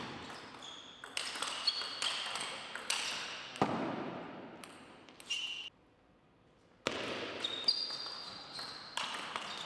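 Table tennis ball struck back and forth by rackets and bouncing on the table in a rally: quick sharp pocks echoing in a large hall. The rally stops a little past halfway, and after a short silence another rally starts.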